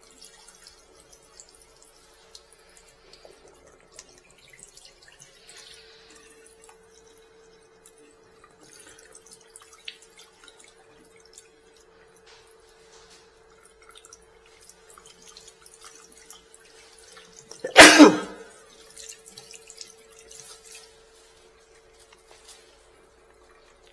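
Water from a tap running faintly as a waste-ink bottle is rinsed out at a sink, with a steady hum underneath. About three-quarters of the way through comes one brief, loud burst of noise.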